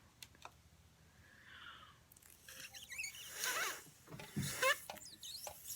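A person blowing hard into the opened top of a peeled, cracked hard-boiled egg to force it out of its shell. From about two and a half seconds in come bursts of airy blowing with wavering squeaks.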